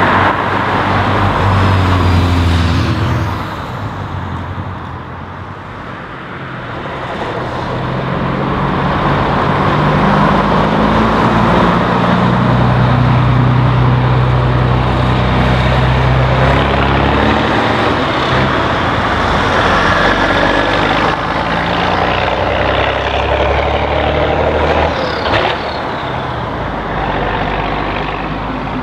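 Heavy diesel truck engines driving past one after another, the engine note rising and falling as each truck pulls away and the next one comes by. A short sharp sound stands out a few seconds before the end.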